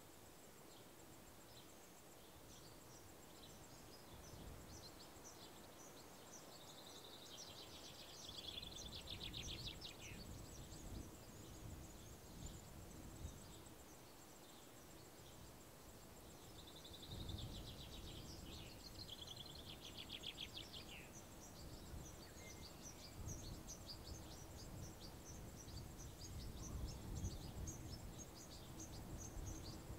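Small birds chirping, with many short high calls and two longer rapid trills, one about eight seconds in and one about seventeen seconds in. A faint low rumble sits underneath.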